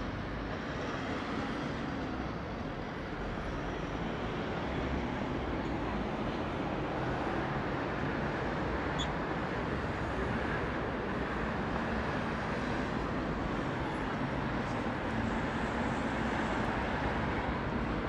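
Steady city street ambience dominated by road traffic noise, growing slightly louder about five seconds in.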